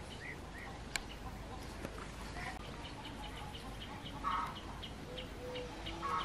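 Birds calling outdoors: a long run of short, high, quickly repeated chirps, with louder calls about four seconds in and again near the end. A single sharp click about a second in.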